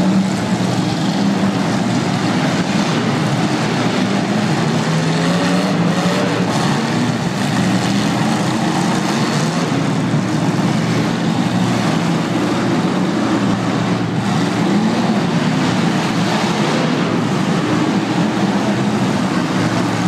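Several demolition derby cars' engines running and revving in a loud, steady din, their pitch rising and falling as they drive.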